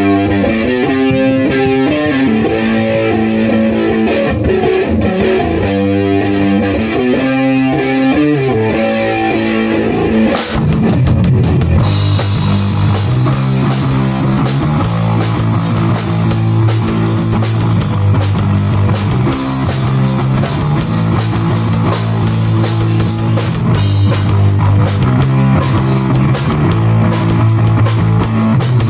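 Live rock band playing: a guitar picks an intro alone for about ten seconds, then drums and bass guitar come in and the full band plays on.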